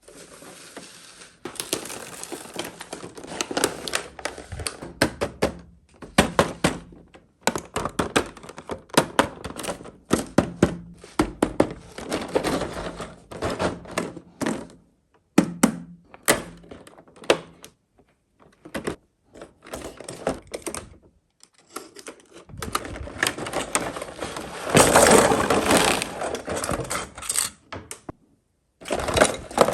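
Hands unboxing and handling small toys: a string of clicks and taps from toy pieces and packaging, with stretches of rustling, and short pauses between the bursts.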